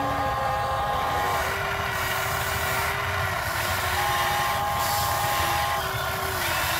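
Electric motors of a Huina RC excavator whining steadily as the arm and bucket dig, the whine stepping in pitch and switching on and off every second or two as different functions start and stop.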